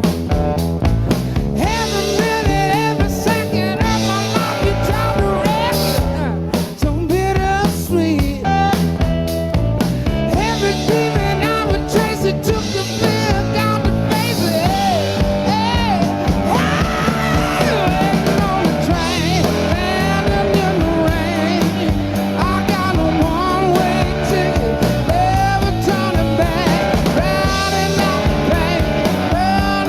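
A live blues and southern-rock song playing: a man singing over a full band with electric guitar.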